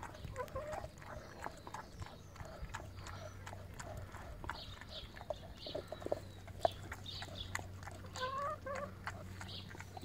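A chocolate Labrador chewing, a steady run of small clicks and crunches. A hen gives a short call about eight seconds in.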